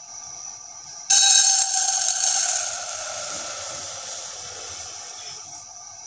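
Granulated sugar poured from a glass into an empty metal pot, the crystals hissing and pattering on the metal. It starts suddenly about a second in and trails off gradually as the glass empties.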